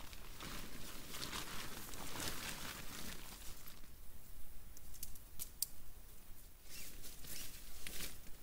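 Nylon tent fabric rustling and crinkling as a small tent is shaken out and handled, with a few sharp clicks a little past the middle and more rustling near the end.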